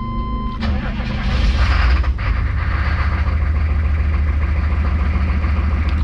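A steady electronic warning tone cuts off as the 6.5 L Detroit V8 turbo-diesel cranks. The engine catches about a second in and settles into a steady idle. It is starting normally after glow plug preheat, now that the failed glow plug controller has been replaced.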